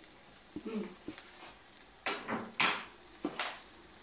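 Mouth sounds of someone tasting hot food: a light click and a short hum, then three short breathy puffs.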